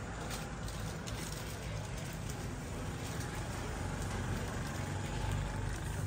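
Busy shop ambience: a steady low rumble and hum with faint, indistinct background voices.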